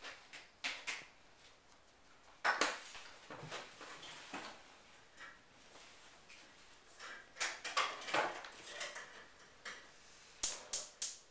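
Irregular knocks and clinks of food cans and jars being handled and set down, with clusters about two and a half seconds in, around seven to eight seconds, and near the end.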